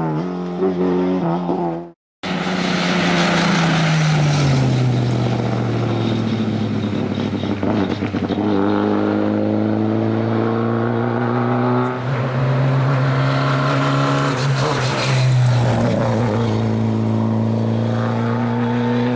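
Lada 2107 Group A rally car's four-cylinder engine driven hard, its revs climbing and dropping again and again through gear changes. The sound cuts out briefly about two seconds in, then the engine note falls before climbing again.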